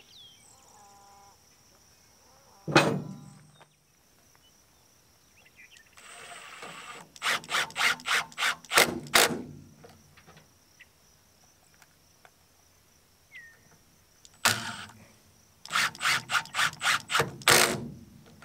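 Cordless drill driving screws into the wooden bed-rail stake boards in short trigger bursts: a run of rapid pulses about a third of the way in and another near the end, after a single sharp wooden knock near the start. A steady high insect trill runs underneath.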